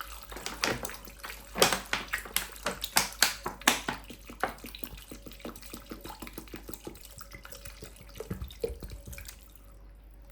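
Two litres of water poured into a pot of pineapple skins, ginger and lemon, splashing irregularly; the pour is heaviest at first, thins out and stops about nine and a half seconds in.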